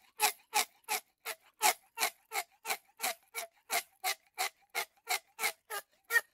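Rose-ringed parakeet calling a rapid, evenly spaced run of short, harsh squawks, about three a second.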